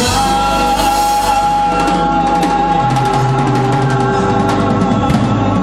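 Live band music: an electronic keyboard holds sustained chords over a steady bass, with drum-kit cymbal hits growing busier from about two seconds in. It comes in at full volume right at the start.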